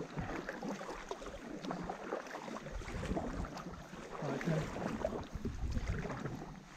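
Paddle blades dipping and pulling through river water beside a tandem inflatable paddleboard, with irregular splashing and water washing past the board.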